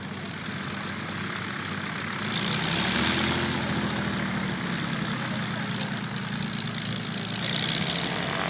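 Zlin trainer aircraft's propeller engine running steadily while taxiing on grass, swelling louder about three seconds in and again near the end.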